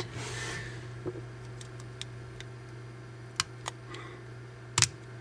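Small plastic clicks and taps as the phone's parts are handled and pressed into place: a few scattered ticks, with one sharper click near the end. A steady low hum runs underneath.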